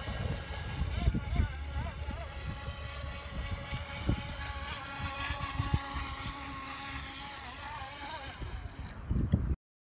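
Motor of a Great Wall Surf Motion radio-controlled surfer whining as it runs across the water, its pitch rising and falling as it speeds up and turns. The sound cuts off suddenly near the end.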